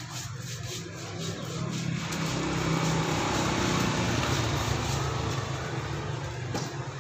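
A vehicle engine running, growing louder towards the middle and then fading again.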